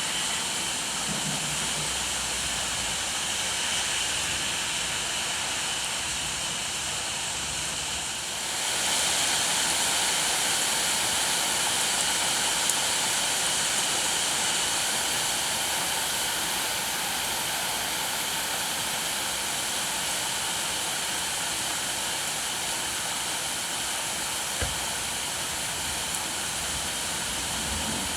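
Steady rain falling, which grows heavier and louder about eight seconds in and then keeps an even hiss.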